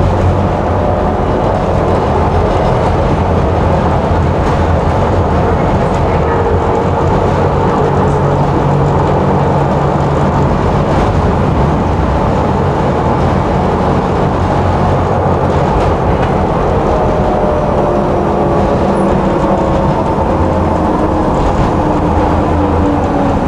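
Tram in motion on its rails: a steady rumble of wheels and running gear, with a motor whine that falls in pitch near the end as it slows.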